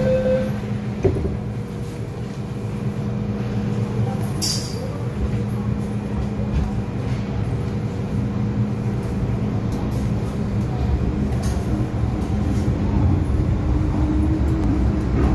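MTR M-Train heard from inside the car as it pulls out of the station into the tunnel: continuous rumble of wheels and running gear with a steady traction-motor hum. There is a short click about a second in and a brief high, falling whistle about four and a half seconds in.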